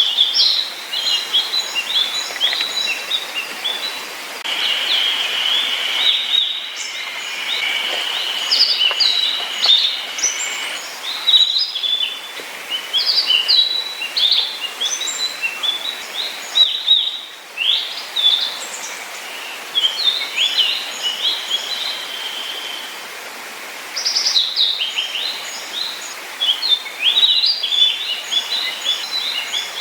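Small wild songbirds calling and singing: many quick overlapping chirps and short sweeping notes. A steady, high drawn-out note runs beneath them twice, for several seconds each time.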